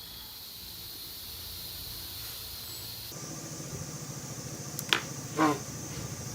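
Steady background hum, then a sharp click about five seconds in and a short ringing metallic clink just after, as of metal parts being handled.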